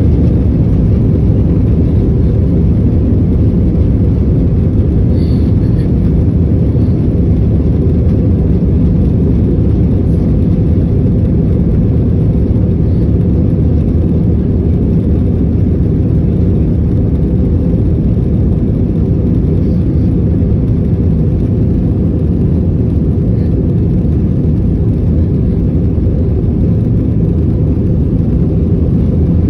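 Steady, deep rumble of a jet airliner heard from inside the passenger cabin while the plane rolls on the ground: engine and wheel noise.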